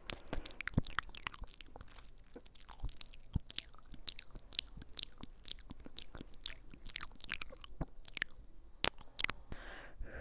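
Close-up ASMR trigger sounds: a dense, irregular run of crisp clicks and crackles, like crunching, right at the microphone.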